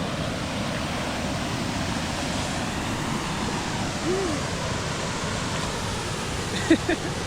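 Steady rushing of a waterfall and its pool, an even wash of water noise, with a brief faint voice about four seconds in.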